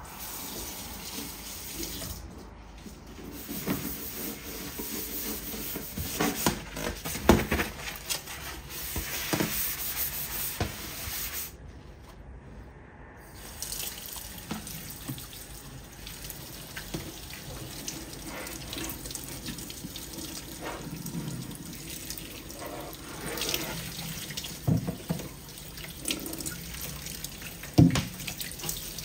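Kitchen tap running into a steel sink while a range hood filter is rinsed and scrubbed under the stream, with occasional sharp knocks of handling, the loudest about a quarter of the way in and near the end.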